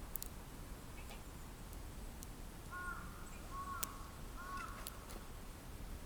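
A bird calling three times in quick short notes, each with a slight hook in pitch, over faint scattered crackling ticks from a wood fire.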